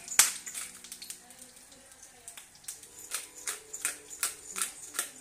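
Pepper mill being twisted by hand to grind peppercorns: a run of short, dry grinding crunches that settle into a steady rhythm of about two or three a second from about halfway through.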